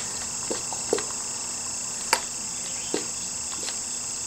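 Light clicks and taps from a small brake fluid bottle being handled at the motorcycle's front brake master-cylinder reservoir while fluid is poured in, about five in all, the loudest a little after two seconds in. Under them runs a steady high-pitched drone.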